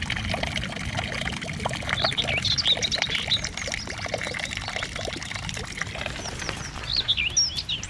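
Small birds chirping and twittering over a steady splashing and trickling of running water.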